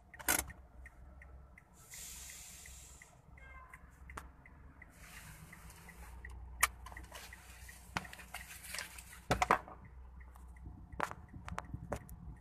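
Low steady rumble of road noise inside a moving car, with two spells of hiss and scattered sharp clicks, plus a faint, even, rapid ticking.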